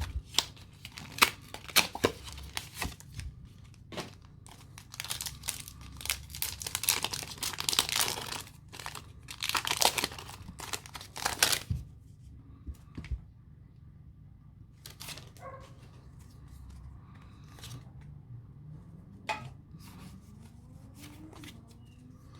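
A Pokémon booster pack's foil wrapper being torn open and crinkled, a dense crackling for about twelve seconds, followed by a few quiet clicks and taps as the cards are handled.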